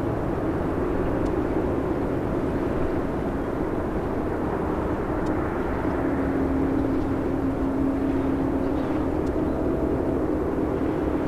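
Boeing 747-400D jumbo jet's four turbofan engines running, a steady drone with a low hum that grows slightly louder about halfway through.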